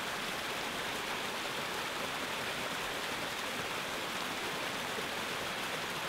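Small stream cascading over rocks: steady, even running water.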